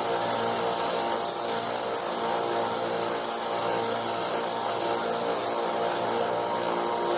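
Electric belt grinder running steadily, with the rub of a knife's handle scales being ground against the abrasive belt.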